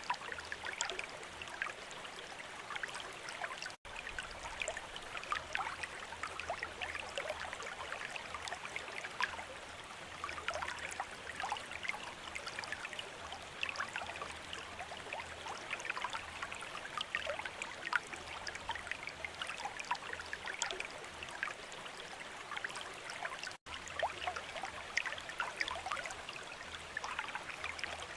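Water from a bamboo fountain trickling and splashing steadily, with many small drips and splashes. The sound cuts out for an instant twice, about four seconds in and near the end.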